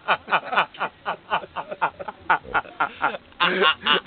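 A person laughing hard in rapid short pulses, each falling in pitch, then a louder, denser burst of laughter about three and a half seconds in.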